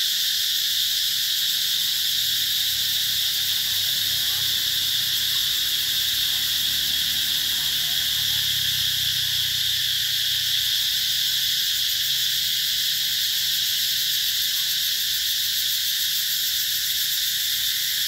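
A chorus of cicadas singing in the trees: a steady, loud, high-pitched drone that does not let up.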